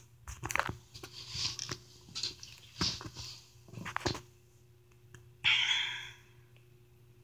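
Handling noise: scattered rustles and light clicks for about four seconds, then one short hiss about five and a half seconds in, over a faint steady hum.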